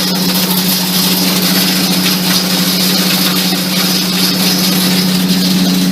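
11 kW hammer mill running steadily, a constant hum under a dense rattling hiss as cast chrome hammers crush broken TV tube and panel glass.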